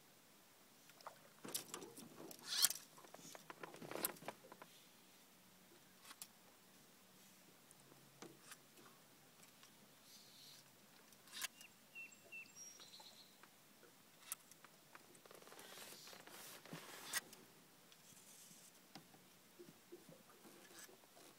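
Faint, scattered clicks, knocks and rustles of fly-fishing gear being handled in a small boat, with a few light splashes. There is a cluster of clatter a couple of seconds in and a longer rustle about two-thirds of the way through.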